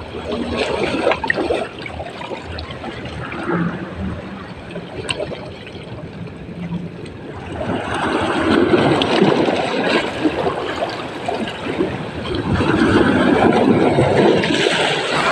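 Seawater washing and splashing along the shore. It swells louder twice in the second half.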